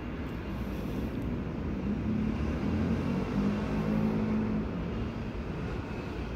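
Electric subway train running on a nearby track out of view: a steady rumble with a low humming motor tone that swells to its loudest about three to four seconds in, then eases off.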